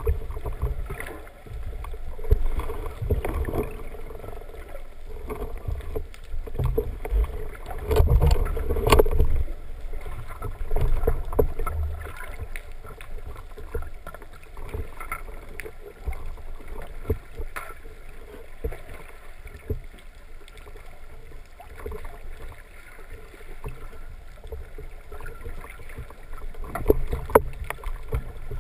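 Muffled water sloshing and rumbling heard underwater through a camera housing, with irregular knocks and clicks and louder surges about a third of the way in and near the end.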